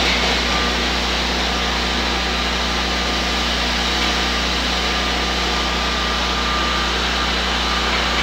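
Walk-behind concrete floor grinder running steadily, its diamond heads grinding a paint-chip epoxy coating off concrete, with its dust extractor drawing through the hose.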